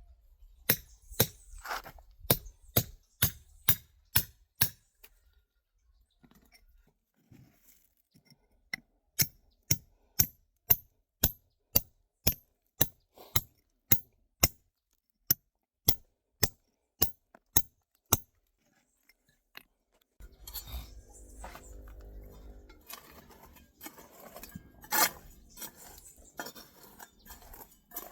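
A metal hand tool striking stone to chip it away, sharp clinking blows about two a second in two long runs. From about twenty seconds in, a stretch of scraping and rustling with a low rumble.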